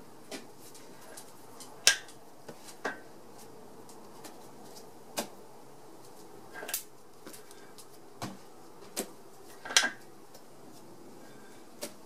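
Mile Marker manual locking hub on a Jeep CJ7's front axle being worked by hand: scattered sharp clicks and light knocks as the hub is turned and its parts snap into place, the loudest about two seconds in and again near ten seconds.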